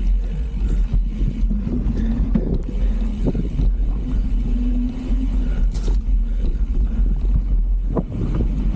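Mountain bike riding down a dirt trail: a steady low rumble of wind buffeting the microphone, with knocks and rattles from the bike over rough ground, one sharper knock near the end.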